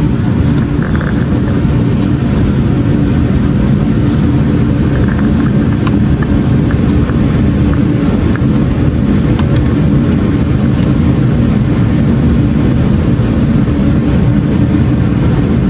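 Car engine running steadily, a constant low drone with no revving.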